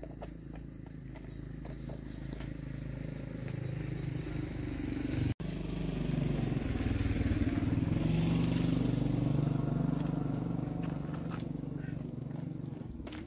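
Motorcycle engine running, getting louder to a peak midway and then slowly fading, as it passes by.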